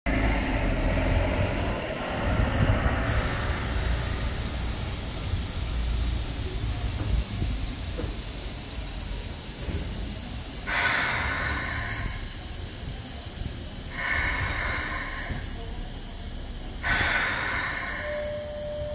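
Keikyu New 1000 series train at a station: a low running rumble for the first few seconds, then a steady hiss broken by three short bursts of hissing, each about a second long and about three seconds apart. A steady tone starts near the end.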